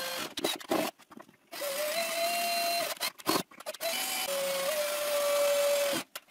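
Cordless drill running in several bursts of a second or two, a steady motor whine that steps up slightly in pitch about a second and a half in and drops back later, as it drills holes at a plunge router's base plate.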